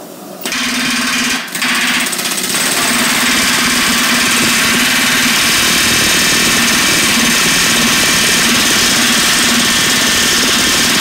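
Pneumatic rivet gun hammering rapidly to set a hot rivet joining a steel spoke to a tractor wheel hub. It starts about half a second in, stops briefly near a second and a half, then runs on without a break.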